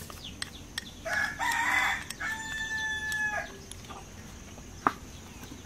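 A rooster crowing once, starting about a second in. The call has a rough, scratchy opening, then settles into a held note for over a second before it cuts off.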